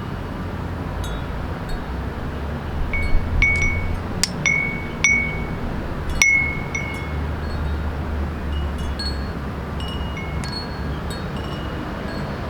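Small wind chime ringing in the breeze. There is a cluster of clear, ringing strikes a few seconds in and lighter tinkles later, over a steady low rumble of wind and city background.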